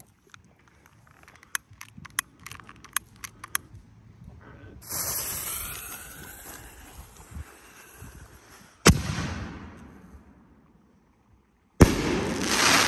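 Phantom Fireworks 500-gram consumer mortar firing. A few sharp clicks, then the fuse hissing as the tube spits sparks for about three seconds, a sharp bang as the shell lifts out of the tube, and near the end a second loud bang as the shell bursts, with a hissing tail.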